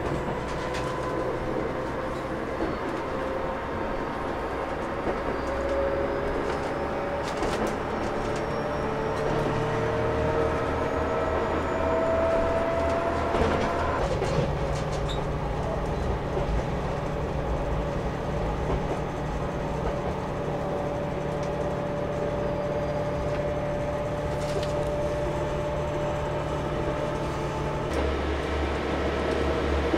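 On-board running sound of a KTR8000 diesel railcar: a steady low engine drone with a tone that rises in pitch as the train gathers speed, and a few clicks of the wheels over the rails. The sound changes abruptly about halfway through and again near the end.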